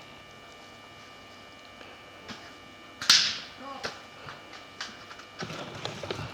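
A single shot from a Maruzen Type 96 spring-powered bolt-action airsoft sniper rifle about three seconds in: a sharp crack with a short hissing tail. It is followed by a few faint clicks, over a steady low hum.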